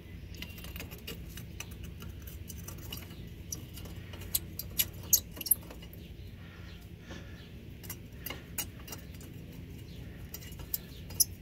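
Light metallic clicks and clinks as bolts and a cut-down metal brake dust shield are handled and fitted by hand onto a car's front spindle. The clicks come in scattered clusters, loudest around the middle and near the end, over a steady low hum.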